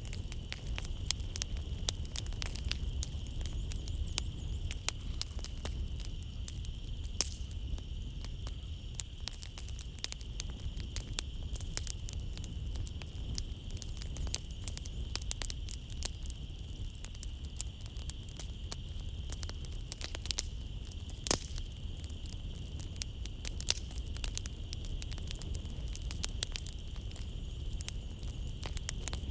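Wood fire crackling in a fireplace: irregular clicks with a few louder pops over a low rumble of the flames. A steady high chirring of night insects runs behind it.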